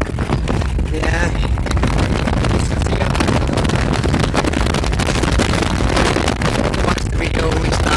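Steady vehicle road rumble with wind buffeting the microphone.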